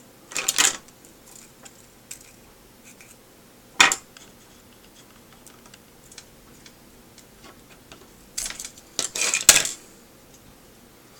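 Small plastic and metal parts of a video headset clicking and clattering as it is prised apart by hand: a short rattle at the start, one sharp click about four seconds in, and a longer run of clatter near the end.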